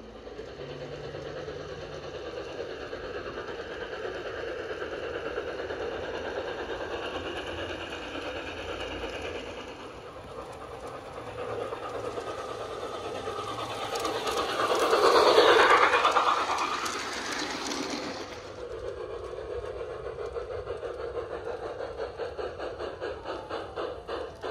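Railway freight cars rolling along the track with a steady rumble and clatter. They grow loud to a peak about fifteen seconds in as they pass close, then roll on with a regular clicking over the rail joints.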